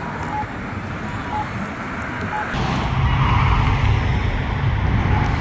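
Road traffic beside a signalised crosswalk, growing louder as a heavier vehicle passes about halfway through. Over it, the Campbell Guardian Wave crosswalk button's locator tone gives a short beep about once a second.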